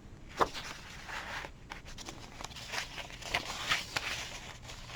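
Paper pages of a handmade junk journal rustling and crinkling as they are turned and handled: a series of soft, irregular rustles.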